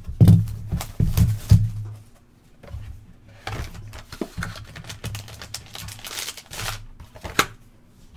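A cardboard 2021 Topps Tier One baseball hobby box being handled and opened by hand. There are several knocks and thuds in the first two seconds, then scattered scraping and rustling of cardboard as the box is opened and its foil pack slid out.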